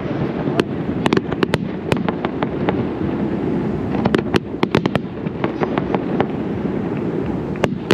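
Zambelli fireworks display: a rapid, irregular run of sharp bangs and crackles over a continuous low rumble of booms.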